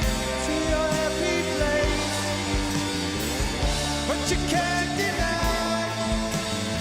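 Rock band playing live, with sustained chords over a steady drum beat.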